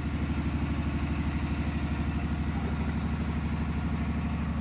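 A small engine running steadily at an even speed, a low throbbing with a fast, regular pulse.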